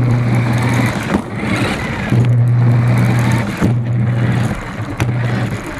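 RC car's motor and drivetrain running, heard from a camera mounted on the car. A low, steady hum cuts in and out several times as the throttle is worked, over a rough rumble from the tyres running over the ground.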